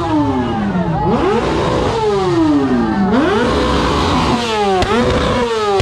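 Motorcycle engine revved again and again, its pitch jumping up and then sinking slowly back about four times. There is a single sharp click near the end.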